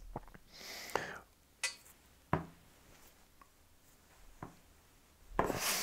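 Scattered light taps and clicks of smartphones being handled on a desk, with a soft rustle about a second in.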